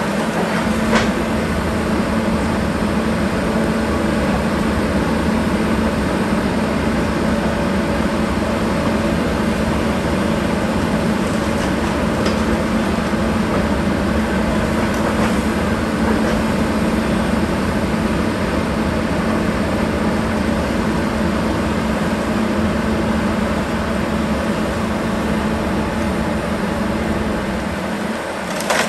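Volvo demolition excavator's diesel engine running steadily under load, with a steady low drone, as its grapple tears into timber and brick wreckage. A few cracks and knocks of breaking debris come through now and then.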